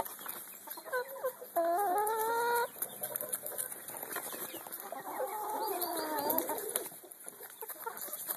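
Domestic hens clucking while they feed: a loud drawn-out call about two seconds in, and a longer call falling in pitch from about five seconds. Short clicks of beaks pecking at grain and scraps run underneath.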